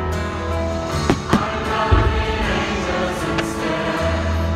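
Choral music with sustained held chords, and two short sharp bangs from the fireworks about a second in.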